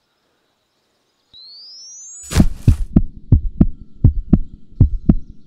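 Added suspense sound effects: after a moment of silence, a synthetic tone rises in pitch for about a second and ends in a loud hit, then a low pulsing thump repeats about three times a second like a heartbeat.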